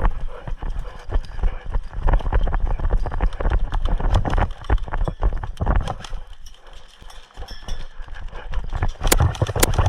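Hurried footsteps on hard ground with gear rattling as an airsoft player runs forward, then a quick cluster of sharp cracks about nine seconds in.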